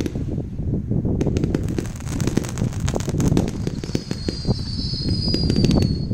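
A 105-shot fan cake firing a rapid, continuous barrage: dense overlapping pops and crackles over a constant low rumble of launches. About four seconds in, a high whistling tone joins and carries on to the end.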